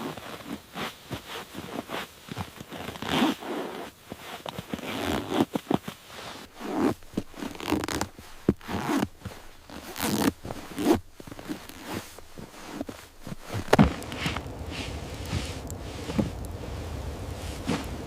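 Irregular crunching and scraping noises, short and uneven. About 14 seconds in they give way to a steady low rumbling noise.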